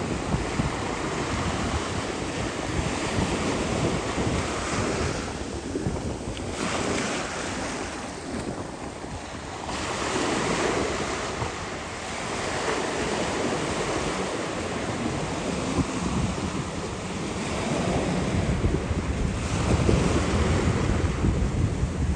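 Wind buffeting the microphone over rushing, splashing sea water, as from a jet ski riding across the sea. The noise swells and eases every few seconds.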